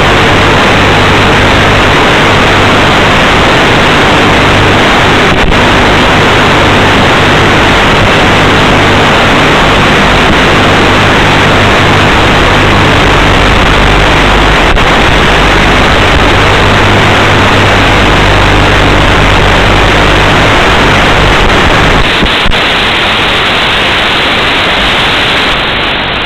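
Loud, steady hiss of static from the audio channel of an analog FPV video receiver, with a faint steady hum underneath that stops about 22 seconds in.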